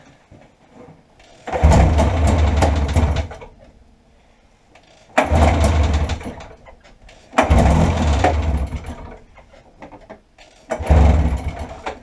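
1990 Arctic Cat Jag snowmobile's two-stroke twin pulled over by its recoil rope four times, sputtering briefly on each pull without catching: a hard cold start with a dead battery.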